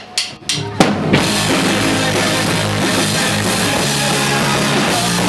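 Punk rock band playing live, drums, bass and distorted electric guitar coming in together about a second in, after a few sharp clicks.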